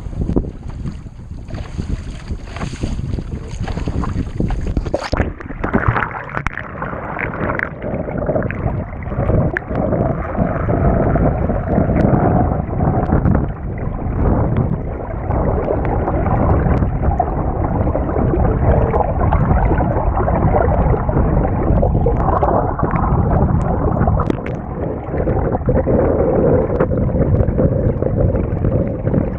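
Wind buffeting the camera microphone and water rushing against the hull of a small foam sailboat under way. About five seconds in, the higher sounds drop away and the rumble grows louder and duller.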